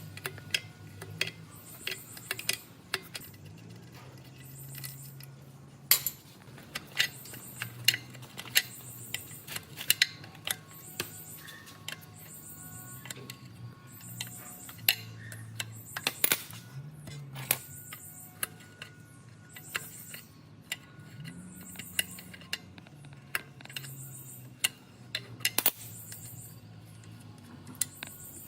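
Background music with a steady beat, under frequent sharp metallic clinks and knocks of hand tools and loose metal parts on the old diesel water pump being worked on.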